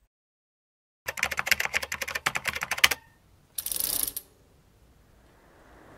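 Typing sound effect: a quick run of key clicks, about ten a second, lasting about two seconds. It is followed a moment later by a short hiss of about half a second.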